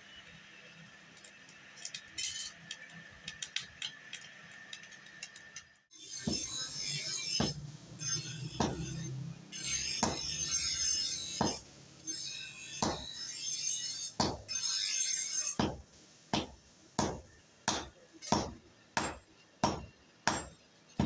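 Hammer blows on red-hot steel held on an anvil, forging a chisel from a truck shaft. The first few seconds hold only faint clinks, then the strikes come thick and loud, settling in the second half into a steady rhythm of about two blows a second.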